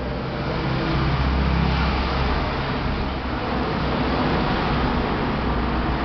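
A motor vehicle's engine running, a steady low rumble that swells up over the first second and then holds.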